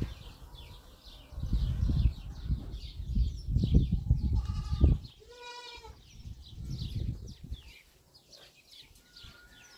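A goat bleats once, briefly, about five seconds in, over small birds chirping all the while. Through the first half, irregular gusts of low rumbling wind noise hit the microphone, and they are the loudest sound.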